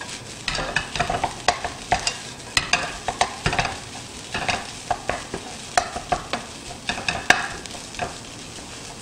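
Wooden spatula scraping and knocking irregularly against a frying pan as fried rice is stir-fried, over a steady sizzle.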